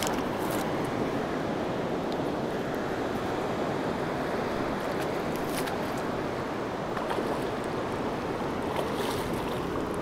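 Steady rush of fast-flowing river water, with a few faint clicks.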